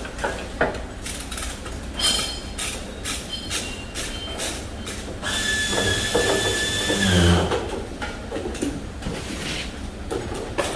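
Hand-operated chain hoist being worked under the load of a car, its chain clinking and rattling in quick irregular clicks. About five seconds in, a steady high metallic squeal lasts about two seconds and ends with a low thud.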